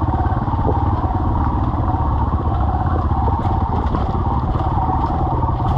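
Kawasaki KLX140 dirt bike's single-cylinder four-stroke engine running steadily as the bike rides along a rocky dirt trail.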